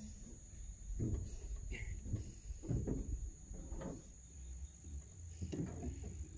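Steady high-pitched trilling of night insects, typical of crickets, with irregular low rumbles and soft knocks from movement near the microphone.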